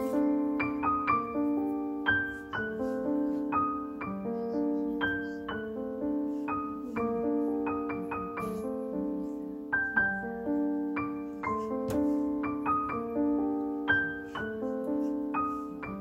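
Background piano music: a gentle, steady run of single notes and chords, each struck and then fading.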